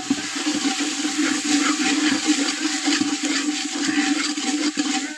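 Onion, tomato and green-chilli masala sizzling in hot oil in an aluminium pot as a metal ladle stirs it: a dense crackling hiss over a steady low hum. It opens with a sharp knock of the ladle.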